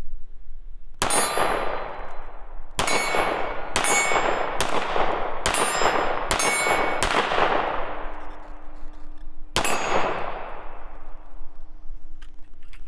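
Hi-Point C9 9mm pistol firing seven shots, each cracking sharply and trailing off in a long ringing decay: six come in fairly quick succession, then a seventh follows after a pause of about three seconds.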